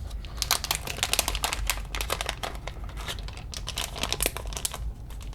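Plastic parts bag crinkling as it is opened and handled to get the parts out: a dense run of crackles that thins out near the end.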